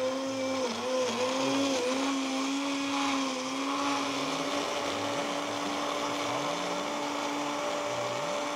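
Electric kitchen blender running as the tomato sauce ingredients are blended. Its motor pitch dips and wobbles a few times in the first two seconds, then holds steady.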